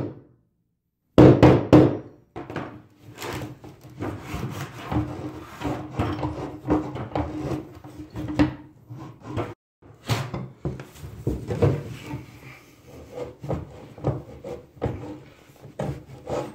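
A mallet knocking on a wrench and tub-drain removal tool to loosen a stuck bathtub drain. A few loud strikes come about a second in, followed by a long run of lighter clicks and knocks as the tools are worked against the drain.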